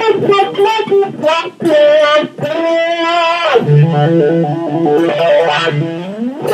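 Electric guitar played through an 18-volt Dunlop Cry Baby 535Q wah pedal with Clarostat pots, with overdrive. A run of picked notes leads into a held note, then fast alternating notes, and a note bends steeply down in pitch at the end.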